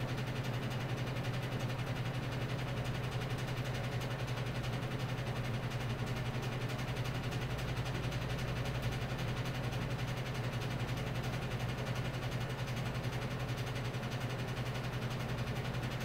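1990s Holmes 20-inch box fan, made by Robeson, running steadily with a low motor hum and a rattle: its blade is warped and its housing is loose.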